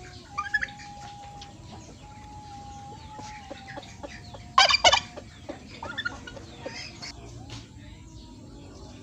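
Chickens clucking and calling in the background, with two loud squawks about halfway through.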